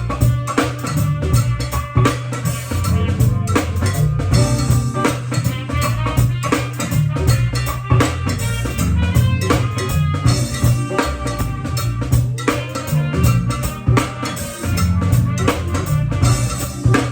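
Band music with a drum kit keeping a steady beat over a heavy bass line.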